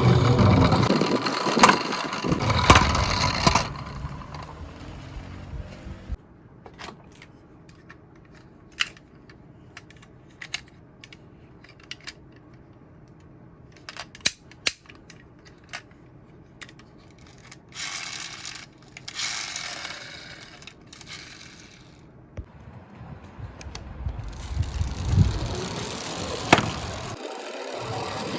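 Die-cast Tomica toy cars rolling down a slope with a rattling rumble at the start and again near the end, and scattered sharp clicks and knocks of the small cars in between.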